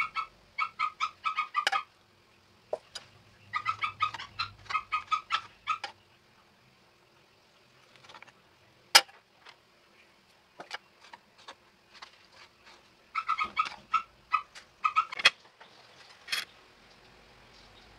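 Runs of quick, pitched chirps from a small animal, about five a second, in three spells of a couple of seconds each. In the gaps come a few single sharp knocks of a kitchen knife cutting on a board.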